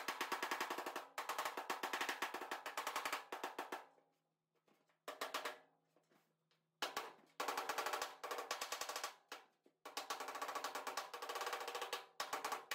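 Fast, light hand-hammer taps on the 1935 Ford Miller Indy's annealed sheet-metal tail, which rings under the blows. They come in about five quick runs of one to three seconds with short pauses between: the blunt tail being worked out toward a pointed shape.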